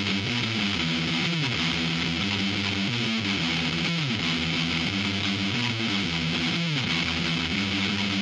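Instrumental background music led by guitar, with several notes sliding down in pitch.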